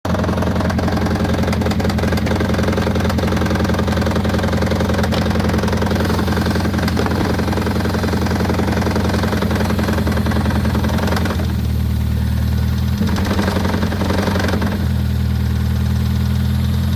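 Toyota Prius 1.5-litre four-cylinder petrol engine running rough with a rapid knocking, which the title calls a rod knock. About 11 seconds in, the running note shifts and turns smoother for a moment, then again near the end.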